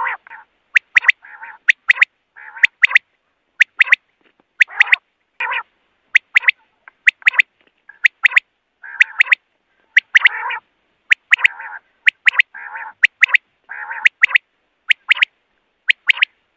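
Common quail calling over and over: sharp, high notes in quick pairs and threes, mixed with harsher, lower, rasping calls between them.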